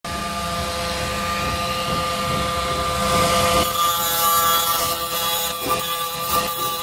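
Angle grinder running with a steady whine; about three and a half seconds in its thin disc starts grinding the steel cutters of a chainsaw chain, and a harsher, hissing grinding noise joins the whine.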